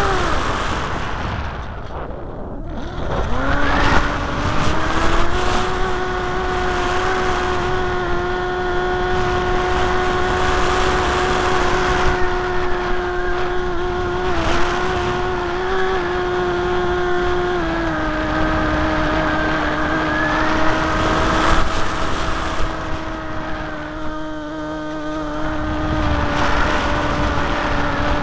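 RC flying wing's motor and propeller heard from the onboard camera, a steady droning whine over wind rush. The pitch sinks almost away about two seconds in, as if the throttle is cut, climbs back by about five seconds and holds, then steps slightly lower about two thirds of the way through.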